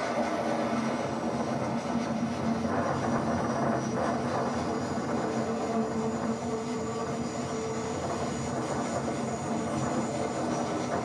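Passenger train running along the track, heard from on board: a steady rumble of wheels and coaches with a low hum.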